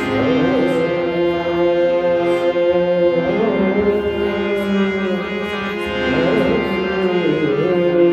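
Harmonium playing a melody over held notes, with tabla accompaniment.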